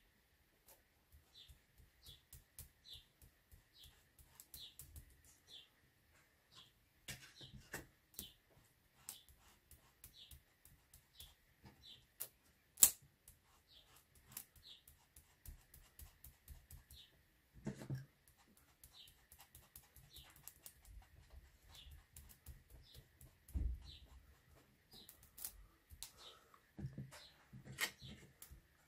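Light taps and clicks of a foam ink applicator dabbing chalk ink through a stencil onto paper, with a few soft handling thumps. A faint short high chirp repeats about every half second in the background.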